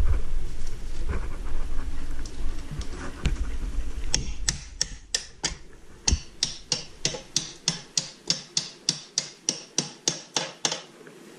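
Ratchet wrench clicking in a quick, even run of about four clicks a second for several seconds. Low rumbling handling noise comes before it.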